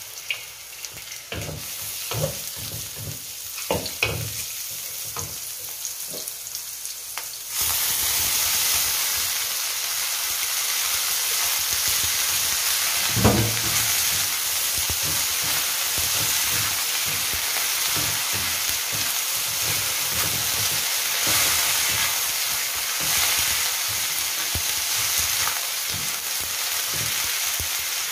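Wooden spatula scraping and knocking in a hot wok as shallots, dried mushrooms and shredded carrot are stir-fried. A few seconds in, a loud steady sizzle starts abruptly as shredded cabbage goes into the hot oil, and stirring scrapes carry on through it, with one louder knock of the spatula about halfway through.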